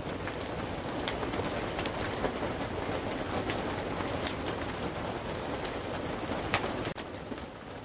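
Wood campfire crackling with scattered sharp pops, over a steady hiss of rain on the teepee's canvas.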